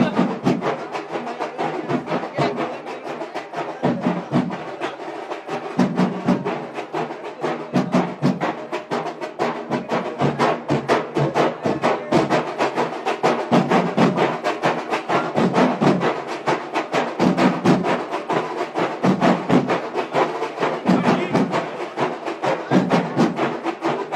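Percussion music: a fast, dense run of sharp drum strokes in a steady rhythm, with heavier low beats underneath.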